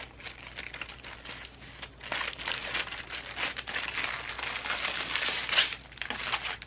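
A small bag crinkling and rustling as it is opened by hand and its contents are handled. The crackling grows busier from about two seconds in and is loudest shortly before the end.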